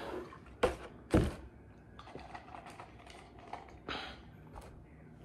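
A plastic milk jug being handled after a long drink: two sharp thumps about a second in, then a string of small clicks and taps. Near the end comes a short breathy exhale.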